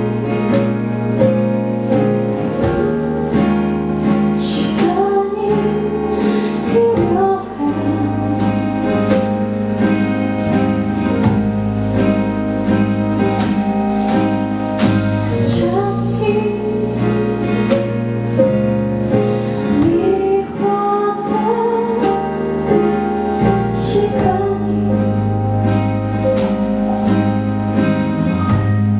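Live pop-rock band music with guitar, bass and drums, a woman's singing voice carrying the melody over it at times.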